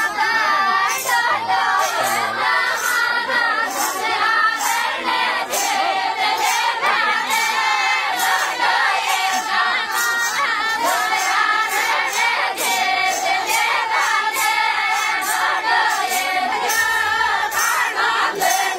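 A group of women singing a Rajasthani Meena wati folk song together in full voice, over a steady beat of about two jingling strokes a second from a chimta, iron tongs hung with jingle rings.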